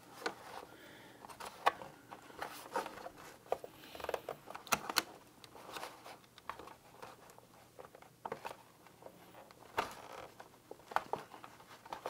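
Hard plastic case of a Fleshlight Launch clicking and scraping as its shell halves are squeezed and flexed apart by hand along the back seam, working the attachment points loose. Irregular sharp clicks, with small scrapes between them.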